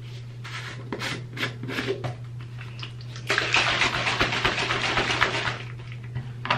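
Clicks and knocks of a plastic powder tub being opened and handled, then a tap running water into a plastic shaker bottle for about two and a half seconds, over a steady low hum.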